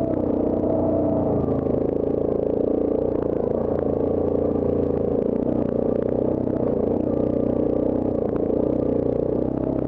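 Yamaha Grizzly ATV engine running steadily while the quad crawls over a rocky trail, with light clatter over it.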